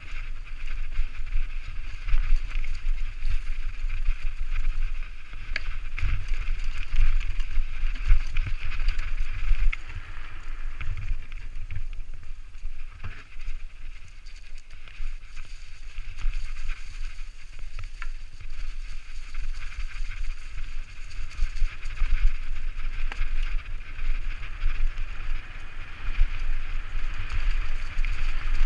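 Propain Tyee enduro mountain bike descending a rough dirt forest trail: tyres rolling over dirt and the bike rattling and knocking over roots and stones, with wind rumbling on the rider's camera microphone. The ride goes quieter for a stretch in the middle, on a smoother, wider track, then picks up again.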